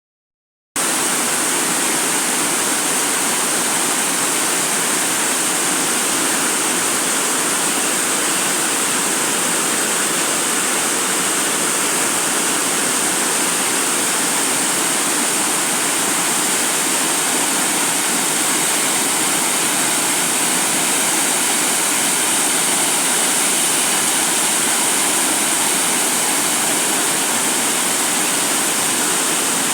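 Waterfall swollen by heavy rains, a loud steady rush of falling water that starts abruptly just under a second in.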